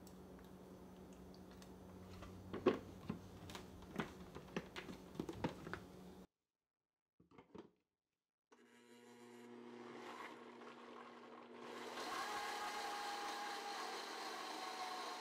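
A few light knocks and clicks as ingredients go into a blender jar, then a Blendtec countertop blender starts up on a thick tofu cheesecake filling, building up and stepping to a louder, higher speed with a steady whine about twelve seconds in, running on to the end.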